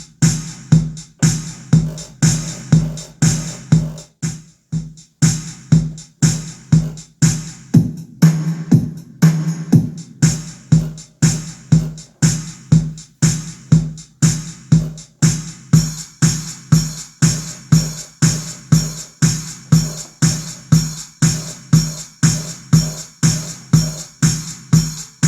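Casio CTK-7300IN electronic keyboard playing one of its built-in drum rhythm patterns through its own speakers: a steady beat of about two strokes a second with a sustained accompaniment tone.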